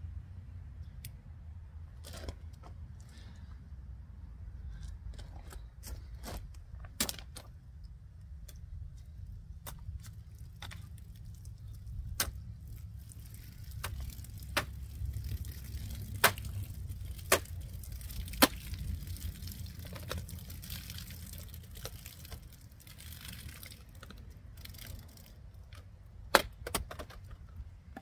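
A folding knife stabbing and cutting into a plastic water bottle: sharp cracks and crackles of the plastic, several loud snaps in the middle and one near the end, with water spilling out of the punctured bottle in the middle.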